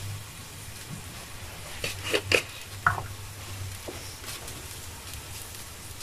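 Cherry-tomato and fish-broth sauce simmering in a steel pan on a gas hob, a soft steady sizzle over a low hum, with a few short pops or taps about two to three seconds in.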